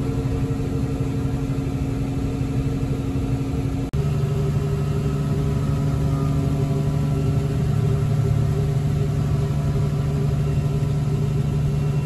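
Case IH 8230 combine running steadily while cutting soybeans: a continuous engine and machine hum. It drops out briefly about four seconds in, and the hum then goes on at a different pitch.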